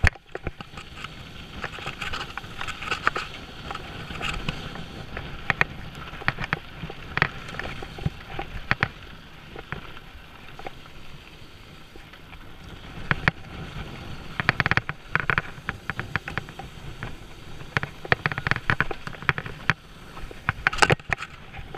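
Mountain bike ridden fast downhill on a dirt and gravel trail: a steady rush of tyre noise on the dirt, with frequent sharp rattles and clatters from the bike's chain and frame over bumps, busiest in the second half.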